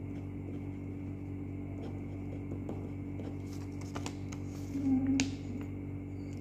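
Ballpoint pen tip of a Baseus 2-in-1 stylus pen writing on a sheet of paper, with faint scratches, over a steady low hum. About four seconds in, the paper is lifted and handled, with a few sharp clicks and rustles, and near five seconds in there is a short low hum that is the loudest sound.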